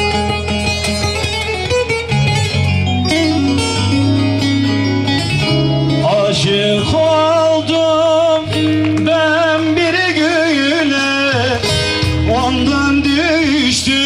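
Amplified Turkish folk music: a plucked-string instrumental passage over a steady bass, then from about six seconds in a man sings into a microphone in a wavering, ornamented melody.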